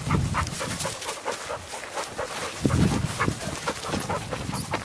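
Dry grass rustling and crunching under feet and paws in a quick run of short steps, with dog breathing close by.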